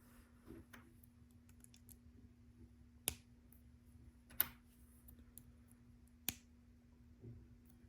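Plastic LEGO pieces clicking and tapping as they are handled and pressed onto the build: three sharper clicks about three, four and a half and six seconds in, with lighter ticks between, over a faint steady hum.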